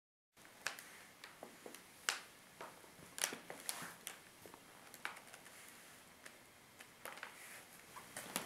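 Irregular small, sharp clicks and snaps, about two a second and uneven in loudness, over a faint hiss; they begin abruptly about a third of a second in.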